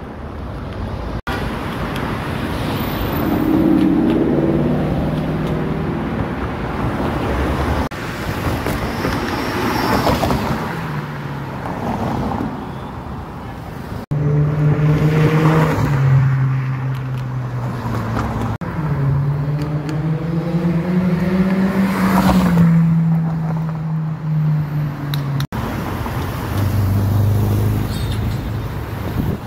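Car engines heard from the roadside in a string of short clips that cut off abruptly, with traffic noise underneath. In several clips one car's engine note holds steady or climbs in pitch as it drives past or pulls away.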